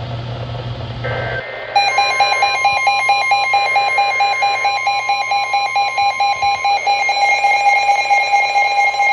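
NOAA Weather Radio alert: a loud, rapidly warbling alarm beep starts about a second and a half in and keeps going, signalling that a new warning is being issued. A steady tone sounds under it and stops about two-thirds of the way through.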